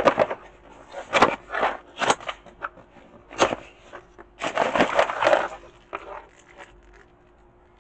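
Cardboard box being handled and opened, its flaps scraping and knocking in short irregular bursts, with about a second of plastic packaging rustling roughly halfway through as a bagged part is pulled out.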